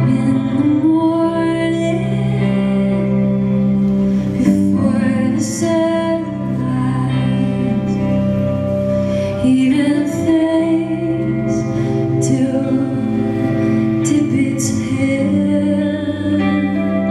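Live folk band playing a slow song: a woman singing over acoustic guitar, with long sustained low notes underneath.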